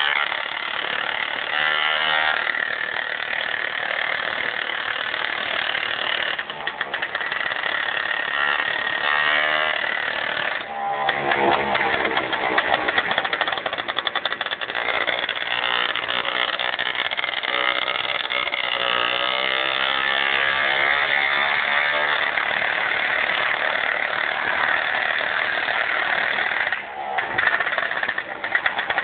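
Piaggio Ciao moped's 50 cc two-stroke engine running through a custom exhaust, loud, its pitch rising and falling several times as the throttle is worked.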